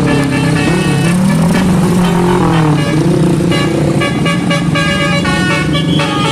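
Bus 'telolet' basuri musical air horn playing a tune, several tones sounding together and stepping from note to note, with a few sliding notes, over a low vehicle rumble.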